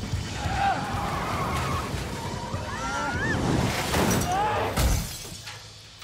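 Car crash sound effects: tyres squealing with a wavering pitch, then a heavy impact and shattering windshield glass near the end, after which the sound dies away.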